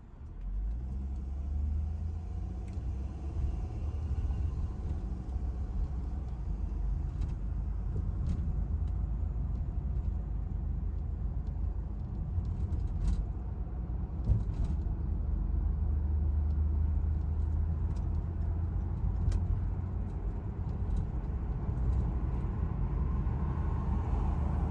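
A steady low rumble, starting just after the opening, with a few faint clicks and ticks scattered through it.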